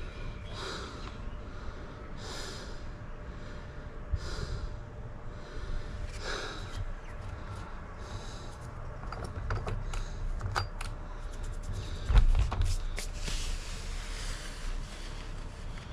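Breathing close to the microphone every couple of seconds, then a run of small clicks and knocks with a louder thump about twelve seconds in, from parts of a Stihl MSA 160 C battery chainsaw being handled while it is examined.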